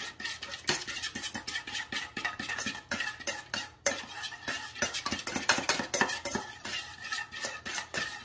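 Metal spoon stirring a thick honey mustard dressing in a small stainless steel bowl: quick, repeated scraping and clinking against the bowl's sides, several strokes a second, with a brief pause just before halfway.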